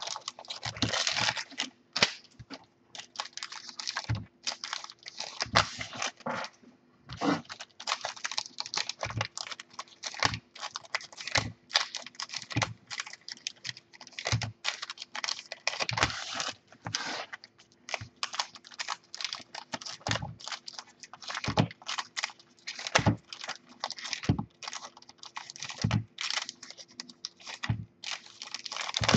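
Foil packs of NRL Elite trading cards being torn open and the cards handled: wrapper crinkling and card rustling, with short knocks against a wooden desk every second or two.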